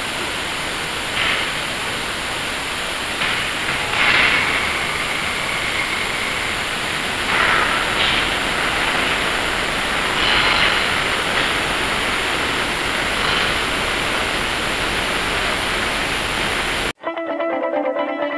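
Oxy-fuel torch flame, clamped upright, burning with a steady hiss, with a few brief louder sounds over it. Near the end it cuts off suddenly to guitar music.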